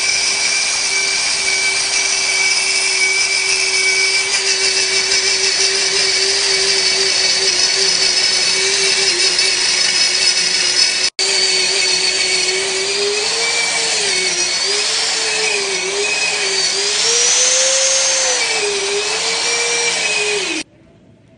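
Electric stainless-steel grain and spice pulverizer's high-speed motor running with a loud, steady whine. In the second half its pitch wavers up and down, and it cuts off suddenly about a second before the end as the timer runs out or is switched off.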